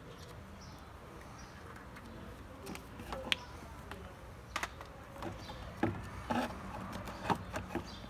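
Faint handling sounds from a vacuum cleaner motor and its plastic housing being moved about: scattered short clicks and knocks, starting about three seconds in, over a low steady background hum.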